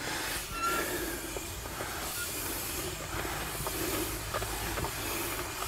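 Rubber garden hose being handled at a wall-mounted Eley hose reel: a steady hiss of rubbing, with a few faint irregular clicks.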